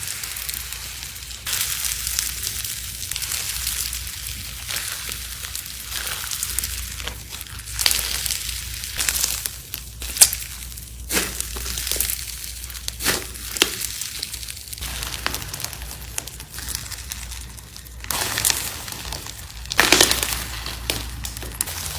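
Slime being squeezed and worked by hand: a continuous crackling and crinkling with sharper pops here and there. The loudest pops come about halfway through and near the end.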